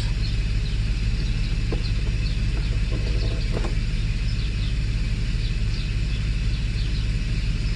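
Mercedes-Benz W140 S600's V12 idling steadily just after a cold start, with the secondary air injection pump running loud alongside. The exhaust is broken.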